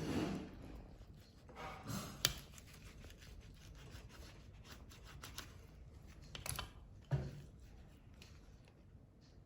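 Knife slicing through a stuffed roti sandwich on a board: quiet scraping and rubbing, with a sharp click about two seconds in and a few short knocks later on.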